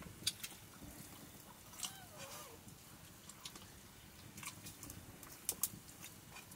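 Faint sounds of eating with the hands from steel plates: scattered small clicks and taps of fingers and rice against the metal, with chewing. A brief faint wavering tone about two seconds in.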